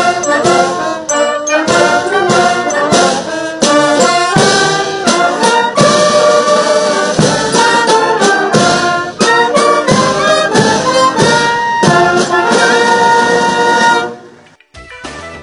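Military band of brass and drums playing a lively tune. It breaks off about fourteen seconds in, and quieter, different music takes over.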